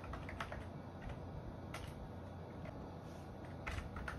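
A few scattered keystrokes on a computer keyboard, with a quick group of clicks near the end, over a steady low hum.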